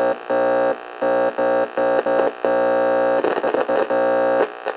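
Electronic glitch sound effect on a title card: a buzzing synthesizer chord that stutters on and off in short chunks, then holds for about two seconds before cutting off near the end.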